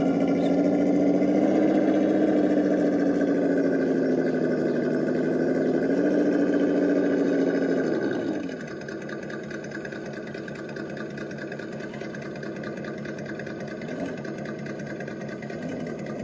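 RC crawler's electric motor and geared drivetrain whining under load as it climbs, the pitch wavering with the throttle. About eight seconds in the whine falls away to a much quieter hum, with two brief throttle blips near the end.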